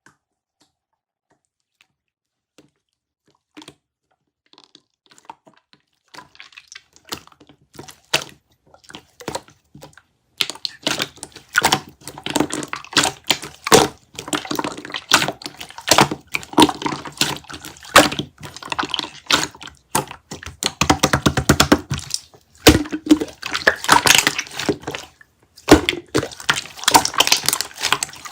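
Close-up wet, crackling squishes of kiwi konjac jelly being squeezed or chewed. They start faint and sparse and turn dense and loud about ten seconds in.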